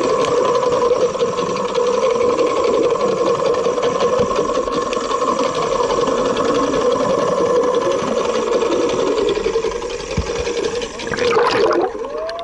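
Boat motor running steadily with a constant whir, over water noise.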